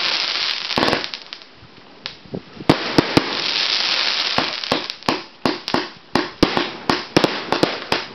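Aerial fireworks going off: sharp bangs with stretches of fizzing, crackling hiss as the stars burst. From about halfway, a quick run of reports follows, about three a second, as the shots fire in rapid succession.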